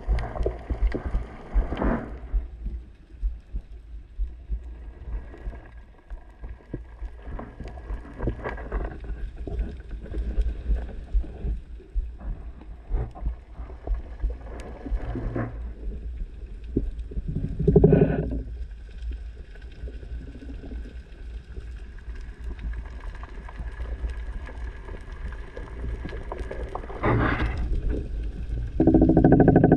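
Muffled underwater sound through an action camera's waterproof housing: a steady low rumble of water moving past the housing with scattered clicks, a louder surge about 18 seconds in, and a louder pitched hum near the end.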